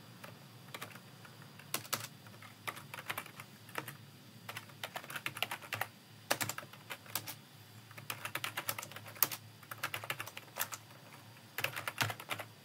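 Typing on a computer keyboard: irregular runs of quick keystroke clicks broken by short pauses.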